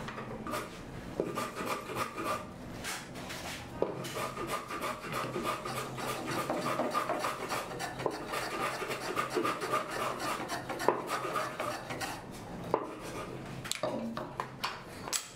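A hand tool working small wooden kumiko pieces held in a wooden jig: quick repeated rasping, rubbing strokes on the wood, with scattered light wooden clicks and taps near the start and near the end.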